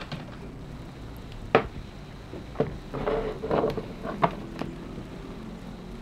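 Handling sounds on a wooden table: a few sharp knocks and light clatter as a tablet and a computer keyboard are set down, the loudest knock about a second and a half in.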